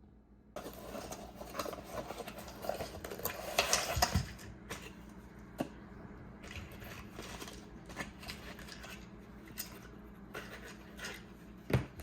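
Objects being handled: rustling and scraping with scattered clicks, busiest about three to four seconds in, and a sharp knock near the end.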